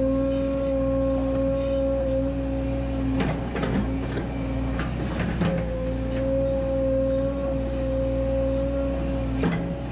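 Volvo 140 hydraulic excavator running while it digs out a eucalyptus stump: a low diesel engine hum with a steady high hydraulic whine that drops away for a couple of seconds midway. A few short knocks come as the bucket works the soil and roots.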